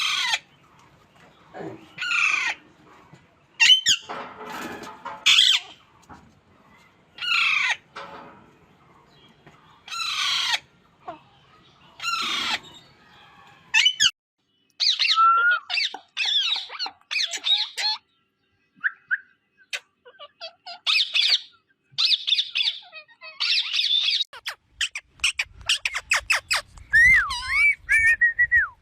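Parrot calling: loud, short squawks with falling pitch, repeated every second or two, then turning into quicker chirps and chatter with a run of rapid clicks and whistled glides near the end.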